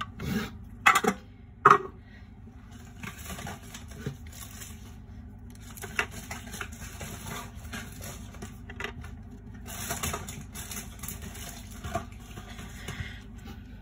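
Hard clear plastic display case clicking sharply twice in the first two seconds as a small diecast toy truck is forced out of it, then light handling rustle with a few faint taps as the toy is turned in the hand.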